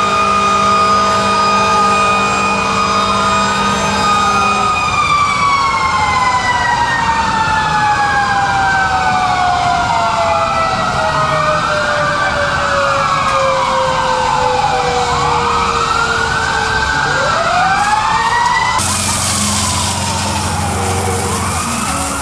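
Several fire-truck sirens sounding together: wails sweeping up and down overlap a steady horn blast that stops about five seconds in, while a mechanical siren winds slowly down in pitch. A loud hiss comes in near the end.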